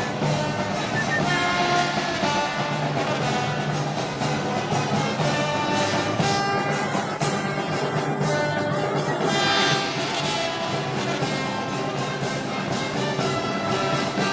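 Brass band playing festival march music, with sustained brass notes over a steady percussion beat.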